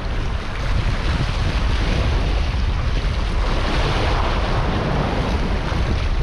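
Wind buffeting the microphone in a steady low rumble, over small waves washing and splashing against the jetty rocks.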